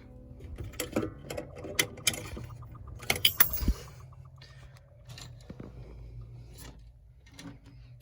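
Sharp clicks, snaps and light metallic clatter of hand work on a clutch pedal assembly, busiest in the first four seconds and then dying down to a faint low hum.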